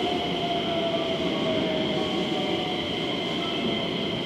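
Distant KiHa 40-series diesel railcar train running on the line: a steady rumble with a faint whine that slowly falls in pitch.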